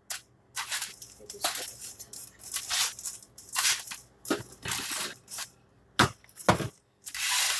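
Food being handled at a kitchen counter: a run of short rustling, scraping noises, with two sharp knocks about six seconds in.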